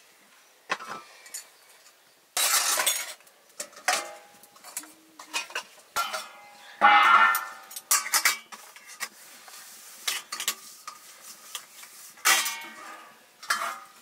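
Steel spoon, pots, lids and plates clinking, scraping and clattering as food is dished out with a spoon, the metal ringing after the louder knocks; the loudest clatter comes about seven seconds in.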